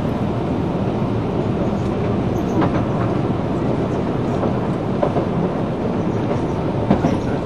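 Running noise inside an Osaka Municipal Subway 66 series train at speed: a steady rumble of wheels on rail, with a few short sharp clicks.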